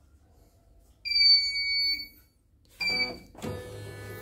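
CNY computerized embroidery machine's electronic beeper: one long high beep of about a second, then a short beep. A steady electrical hum follows.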